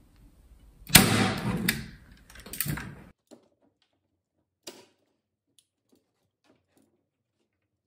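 Furniture back board being fitted into its frame: a sharp knock about a second in, then about two seconds of rubbing and knocking, followed by a few faint clicks.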